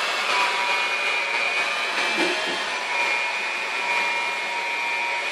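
Electric hand mixer with dough hooks running steadily while kneading bread dough: an even motor whir with a thin high whine.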